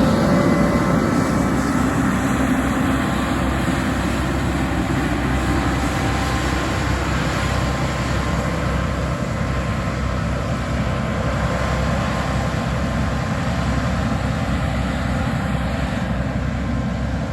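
Heavy sugar beet harvesting machinery running: a steady diesel-engine rumble with broad mechanical noise, easing slightly over the first few seconds.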